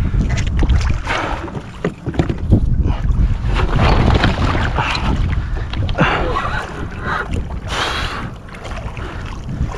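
Water splashing and sloshing around a kayak as a person gets out into the water, in several bursts, the loudest near the end, over heavy wind buffeting on the microphone.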